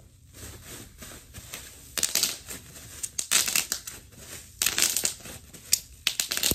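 White packing material crinkling and rustling as it is handled and crumpled in the hands, in irregular crackly bursts that get louder from about two seconds in.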